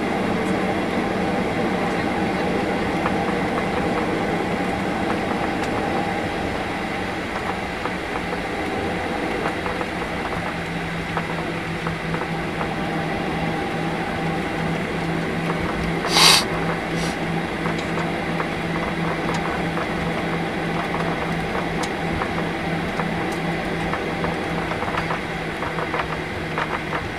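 Cabin noise of a Boeing 737-800 taxiing, heard from a window seat: the steady hum of its CFM56 engines at low power and the rumble of the airframe rolling, with a low drone setting in about eleven seconds in. A single sharp click or knock is heard about sixteen seconds in.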